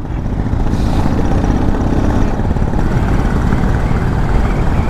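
Steady, loud engine and road noise of a vehicle travelling along a road.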